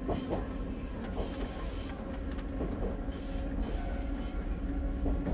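Choshi Electric Railway train running along the track, heard from on board: a steady rumble of wheels on rail under a low motor hum, with brief high-pitched wheel squeals coming and going every second or so.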